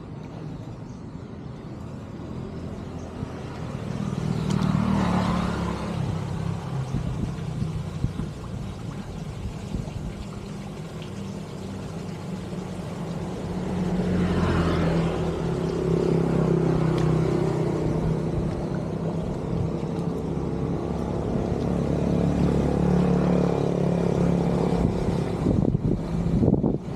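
Motor vehicle engines running steadily, with two vehicles passing close by, one about five seconds in and another about fifteen seconds in.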